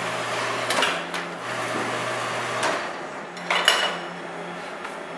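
A small horizontal metal-cutting bandsaw running, then stopping about two and a half seconds in. A few sharp metallic clanks follow as a cut steel plate is handled.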